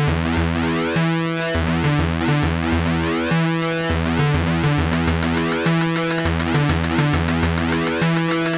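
Instrumental music led by synthesizer, with a repeating bass line and held chords.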